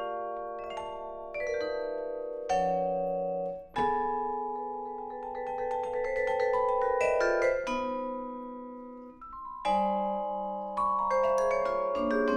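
Solo vibraphone played with mallets: clusters of struck chords and quick runs of notes, every few seconds, each note ringing on and overlapping with the next.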